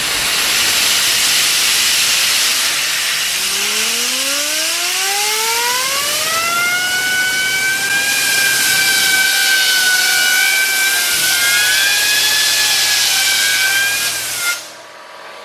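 Compressed-air blowgun hissing loudly into a 3D-printed plastic compressor wheel, a copy of a Rotrex wheel, mounted on a fidget-spinner bearing. As the wheel spins up, a whine rises steadily in pitch over several seconds, then holds high and wavers a little, until the air cuts off near the end.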